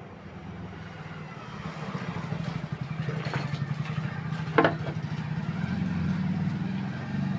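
A low, steady engine-like drone with a fast even pulse, growing louder over the first two seconds, with one sharp click about four and a half seconds in.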